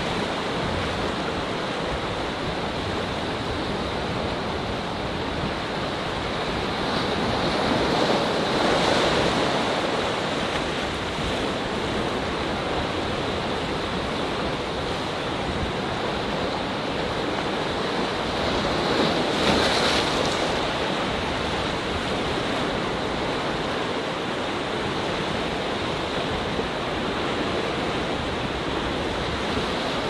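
Atlantic waves breaking and washing among rocks: a steady rush of surf that swells louder twice, about a third of the way in and again about two-thirds of the way in.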